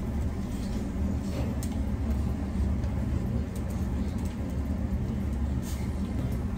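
Steady low rumbling hum of restaurant background noise, with a few light clinks of metal spoons against bowls.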